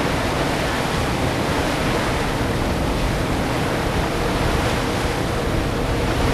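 Wind buffeting the microphone at the open waterfront: a steady rushing hiss with a ragged low rumble underneath.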